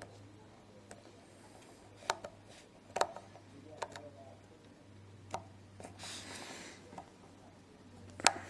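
Faint, scattered clicks and ticks of a small screwdriver tip catching on a tiny bottom screw and the metal frame of an iPhone 4 as the screw is lined up and driven in, with fingers handling the phone; the sharpest click comes near the end. A faint low hum runs beneath.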